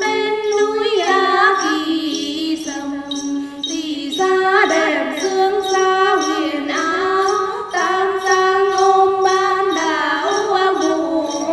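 A woman singing a traditional Tay folk song in long, held notes with vibrato, over a regular light jingle of small bells.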